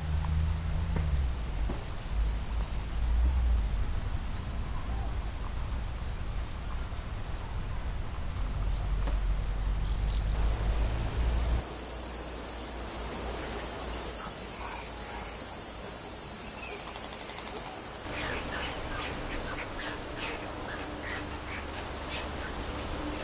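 Outdoor summer ambience: a high, steady insect hum comes and goes, small birds chirp now and then, and a low rumble fills the first half. About three-quarters of the way through, a rapid run of short, repeated bird calls begins.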